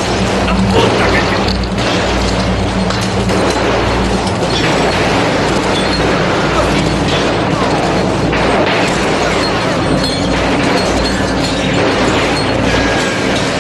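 Heavy gunfire and booming blasts from a film shootout, dense and continuous, mixed with a dramatic music score.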